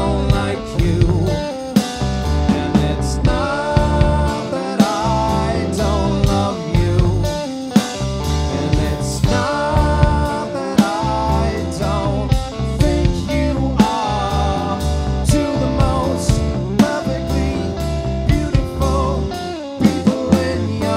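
Live rock band playing a song: electric guitar, bass and drum kit keeping a steady beat, with a sung lead vocal over it.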